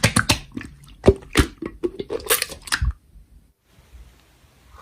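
Slime being squished and poked, a quick run of sticky clicks and pops for about three seconds, then it goes nearly quiet.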